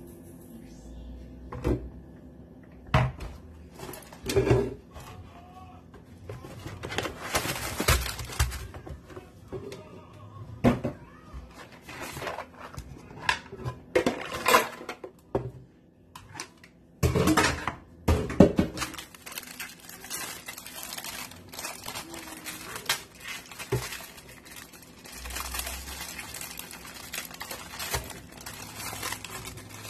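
Clear plastic storage canisters and lids knocking and clicking as they are handled and set down on a stone countertop, with irregular sharp knocks and stretches of plastic packaging rustling.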